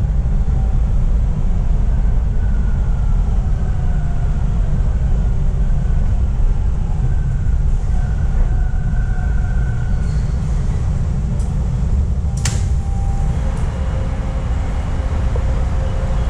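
Toronto Line 2 subway train running, heard from inside the car: a steady heavy rumble of wheels on rails with faint whines gliding up and down. A single sharp click sounds about twelve seconds in, after which a steady hum sets in.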